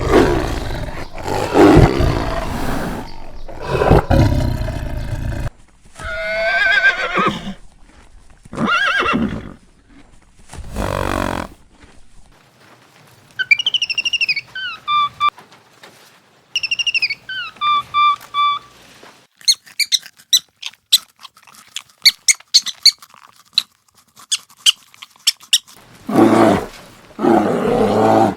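A string of different animal calls, one after another: loud rough calls at the start and again near the end, pitched calls in between, two matching phrases of stepped, falling chirps in the middle, then a run of rapid high chirps.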